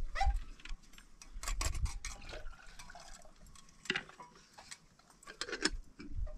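Scattered light clinks and knocks of a metal tray handled against plastic basins, with a little water moving in the basin. The clinks come in small clusters, most about a second and a half in, then near four and five and a half seconds.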